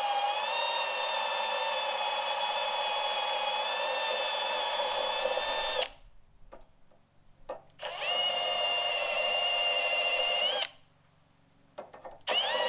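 Power drill drilling out spot welds in a car body's sheet steel, running with a steady whine in three bursts: about six seconds, a pause, about three seconds, then starting again near the end.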